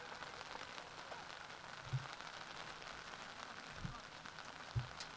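Steady hiss of light rain, with a few short dull thumps about two, four and five seconds in.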